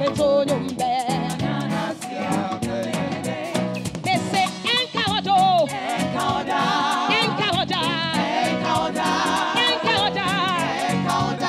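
Live gospel singing: a lead singer with a group of backing vocalists, the voices sung with wide vibrato over accompaniment with a steady beat.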